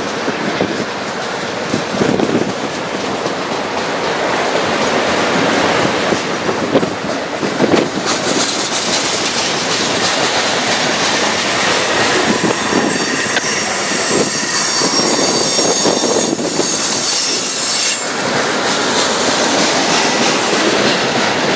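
Freight train cars rolling past on steel rails, with a steady rumble and clatter and high-pitched squealing from the wheels.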